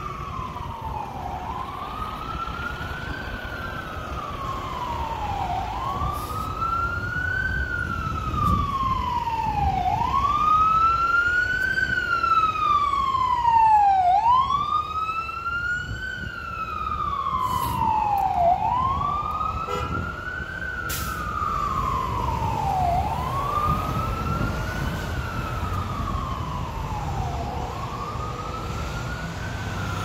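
An emergency vehicle's siren wailing, its pitch rising and falling slowly about every four seconds, loudest around the middle and then easing off, over a low rumble of road traffic.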